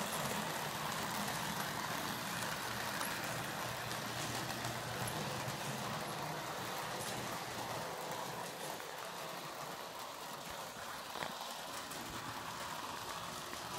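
Marx 333 toy steam locomotive running slowly at low voltage and pulling a string of cars on floor track, a steady quiet whir of its motor and rolling wheels. A single click sounds about eleven seconds in.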